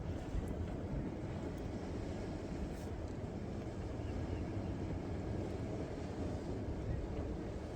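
Wind buffeting the microphone: a steady low rumble with no pitch to it.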